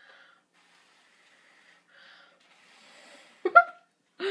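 Faint breathy blowing through a homemade water-bottle bubble blower, its cloth end pushing out a snake of soap foam. Near the end comes one brief loud vocal sound, a gasp rising in pitch.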